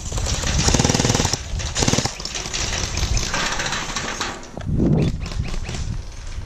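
Jin Ming M4A1 Gen 9 gel blaster firing on full auto in several bursts, a rapid mechanical rattle from its electric V2-style gearbox cycling.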